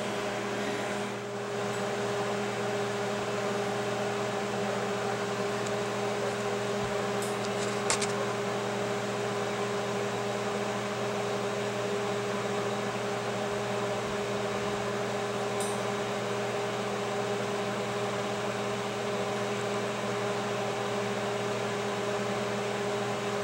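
Steady machine hum with an even fan hiss, the sound of the TIG welder and shop equipment left running between welds, with a light tick about eight seconds in.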